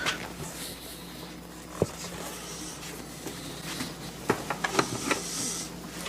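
Torque wrenches being handled on a workbench: a single sharp knock a little under two seconds in, then a quick run of light metallic clicks about four seconds in.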